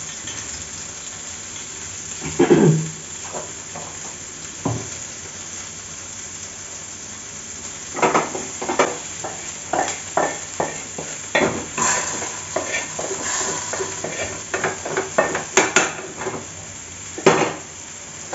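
A metal spatula scraping and clinking against a small iron pan as hot tempering is tipped out of it into a pot of dal, with quick bursts of scrapes and knocks from about eight seconds in. Under it runs the steady sizzle of frying.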